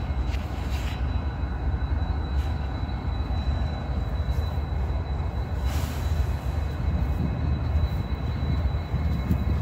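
Norfolk Southern diesel-electric locomotive's engine rumbling steadily as it creeps slowly past, with a brief hiss about six seconds in.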